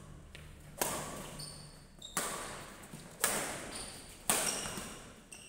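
Badminton racket strings hitting a shuttlecock in a rally, four sharp cracks about a second apart, each echoing in a large hall.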